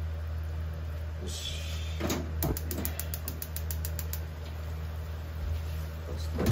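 Boiled spaghetti tipped from a plastic colander into a frying pan, with a quick run of rattling clicks as it slides out and a thump near the end, over a steady low hum.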